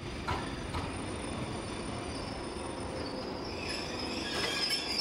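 Electric commuter train pulling into a station platform: a steady rumble of wheels on rail, with a couple of knocks early and high-pitched squealing growing stronger near the end.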